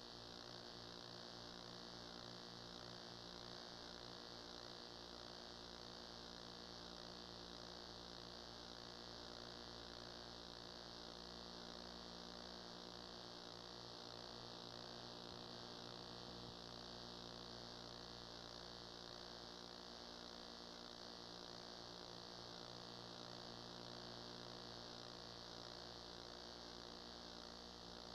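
Faint, steady electrical hum with a band of hiss above it, unchanging throughout; no other sound.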